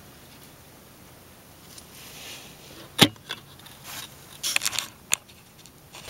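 Engine oil draining from a motorcycle's drain plug into a metal drain pan, a faint steady trickle, broken by a sharp click about halfway through and a short run of clicks near the end.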